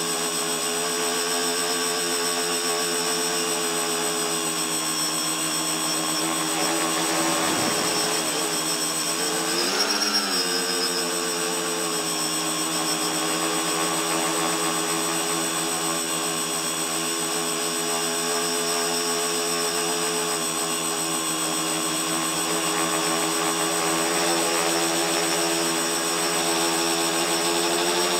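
A tricopter's three electric motors and propellers running in flight, heard from the camera on its frame: a steady multi-tone whine. About 8 to 10 seconds in, the pitch dips and then rises again as the throttle changes.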